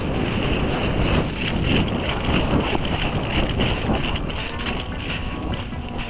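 Wind buffeting the microphone in a dense, uneven low rumble, with a steady high hiss and scattered faint clicks.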